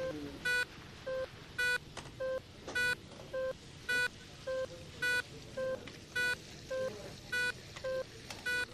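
Electronic beeping from hospital equipment in a steady repeating pattern, alternating a brighter beep and a duller one, about two beeps a second, over low room noise.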